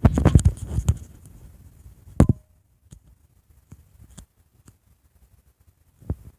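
A quick cluster of knocks and rustles in the first second, then single sharp knocks about two seconds in and near the end, with faint ticks between.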